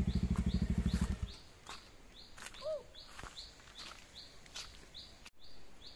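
Bajaj Dominar 400's single-cylinder engine running at low revs with an even pulse, cut off abruptly about a second in. Faint high bird chirps then repeat a couple of times a second, with one short gliding call.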